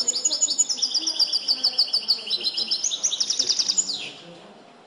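Caged European goldfinch singing a fast run of sharply repeated high notes in the trained limpio (copia) song style; the song stops about four seconds in.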